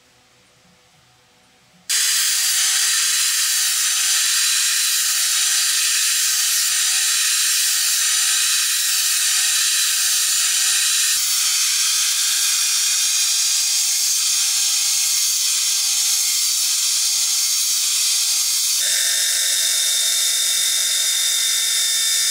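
An electric angle grinder grinding a coconut shell starts suddenly about two seconds in: a steady loud hiss of the disc on the shell over a motor whine that wavers up and down. Near the end the sound changes to a higher steady whine, an electric drill boring into the shell.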